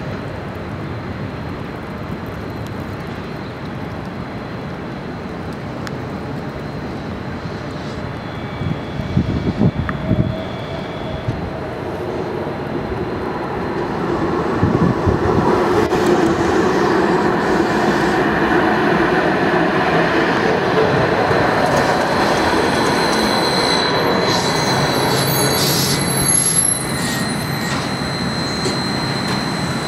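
NJ Transit Hudson-Bergen Light Rail Kinki Sharyo light rail car pulling into the station and coming to a stop. Its running noise grows from about halfway through, with a steady high whine and wheel squeal near the end. A few short knocks come about a third of the way in.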